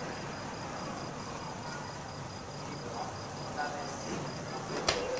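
Night ambience with a cricket's high, evenly pulsing trill, and one sharp click near the end.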